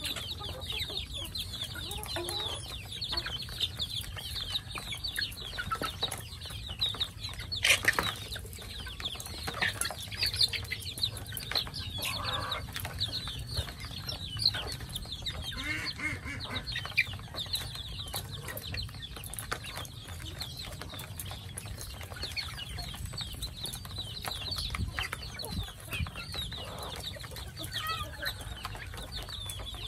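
A flock of young chickens peeping in quick high chirps that never stop, with a few lower clucks here and there. A single sharp click about eight seconds in.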